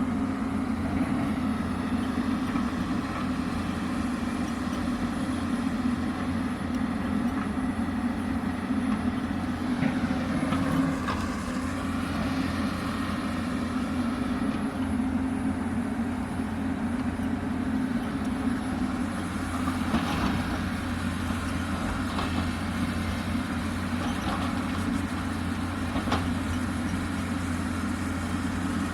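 Hyundai 220 excavator's diesel engine running steadily with a constant drone, with a few short knocks and scrapes about a third of the way in, two-thirds in and near the end.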